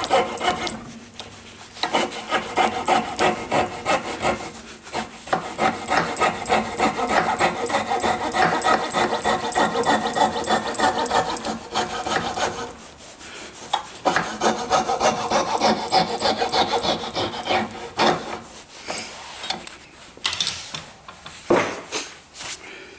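Coping saw cutting through wood in rapid back-and-forth strokes, the thin blade ringing as it rasps. The strokes pause briefly about a second in and again about halfway through, then a few last strokes come near the end as the waste piece between the dovetail shoulders is cut free.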